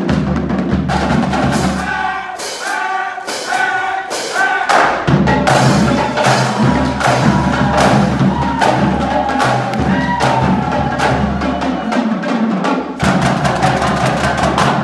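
Marching drumline playing a fast, loud cadence on snare drums, tenor drums and bass drums, with dense sharp strokes over the bass drums' low booms. Voices call out over the drumming between about two and five seconds in.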